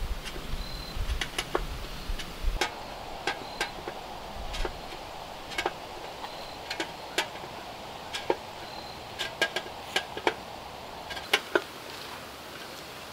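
Sharp, irregular clicks and taps, about twenty of them, as a section of black stovepipe is worked at its seam with a screwdriver while being fitted together.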